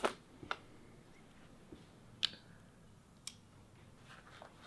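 Plastic zip ties being handled, giving four short sharp clicks, the first and loudest at the very start and the others spread over the next three seconds.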